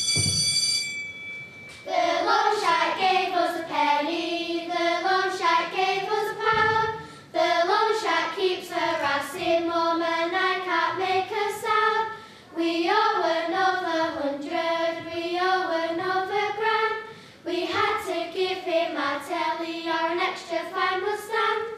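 Young voices singing one melody in four phrases of about five seconds each, with short breaks between them. Before the singing begins, a steady electronic tone fades out about a second in.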